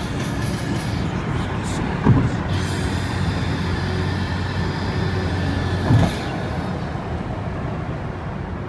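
Steady road noise heard from inside a moving car on an expressway: tyre and engine rumble, with two short thumps about two and six seconds in.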